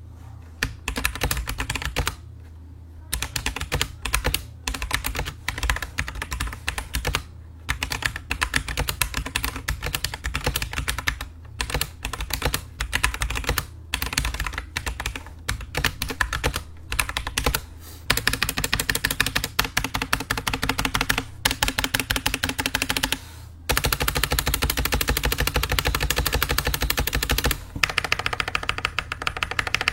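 Typing on a mechanical keyboard fitted with AKKO CS Sponge tactile switches, which have a double bump: rapid key clicks in runs with short pauses. The typing turns faster and unbroken in the second half.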